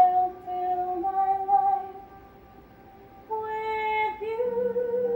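Slow, soft stage-musical music: a melody of long held notes, with a pause of about a second in the middle before another note is held.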